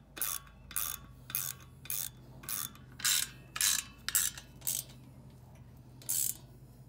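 Socket ratchet clicking in short back-swings, about two a second, as lag screws are snugged down through a hose hanger's bracket into a block wall. There is a brief pause near five seconds, then one more swing.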